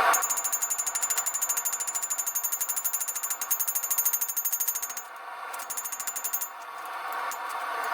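Fast, even mechanical hammering of hot W2 steel bar stock being drawn out, about ten blows a second, typical of a power hammer. It pauses briefly about five seconds in and starts again, then gives way to a rising steady rush near the end.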